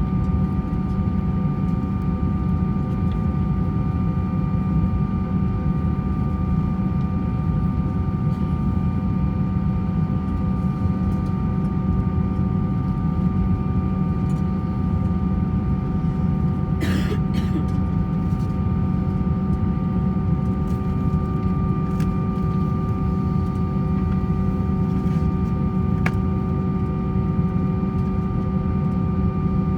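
Cabin noise inside an Airbus A321-200: a steady rumble with a constant engine whine of several held tones. A brief sharp sound stands out about 17 seconds in.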